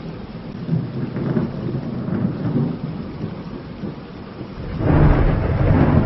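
Thunder rumbling over steady rain, with a louder, deeper rumble swelling up about five seconds in.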